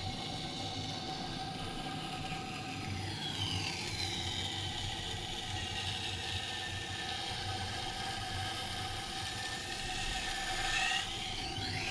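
Powered wet sharpening wheel running with a steady hum while a knife blade is ground against the wet stone, to raise a burr along the edge. A high ringing tone from the blade on the stone falls in pitch about three seconds in and rises again near the end as the blade is drawn along.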